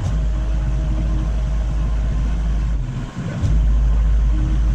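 Engine of a telescopic boom lift running as the boom raises the work basket: a steady low rumble that drops briefly about three seconds in, then comes back louder.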